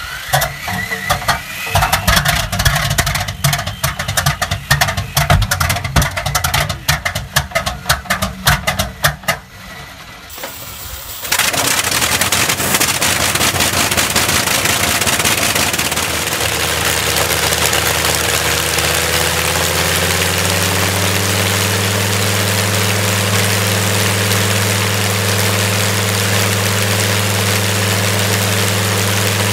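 Bristol Hercules two-row sleeve-valve radial aero engine on a test stand: for about the first ten seconds it fires raggedly with irregular bangs as it catches. Then it runs steadily, its pitch sinking slightly and settling into an even idle.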